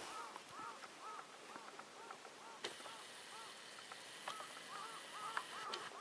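A flock of waterfowl honking: many short, arched calls overlapping several times a second, with a few sharp clicks and a light hiss underneath.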